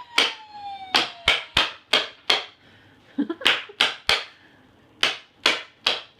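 Runs of sharp strikes, each with a short ringing tail, about three a second and broken by a few short gaps, from a child's battery-powered vehicle sound puzzle.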